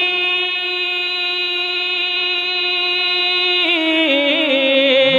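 A male naat reciter's voice holding one long, steady sung note on the end of a line. Near the end it steps down in pitch through a wavering, ornamented run.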